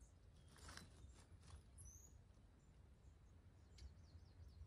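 Near-silent woodland with faint small birds chirping now and then, and a few soft rustles about a second in.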